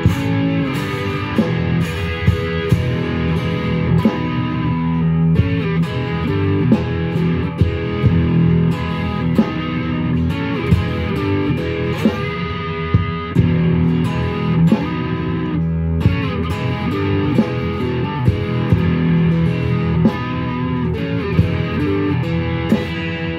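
Electric guitar playing a rag tune: a steady, unbroken run of plucked notes over sustained low bass notes.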